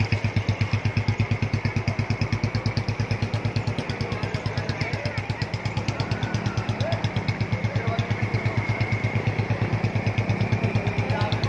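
Motorcycle engine running at low revs with a steady, even beat of about six or seven pulses a second, easing slightly in level midway.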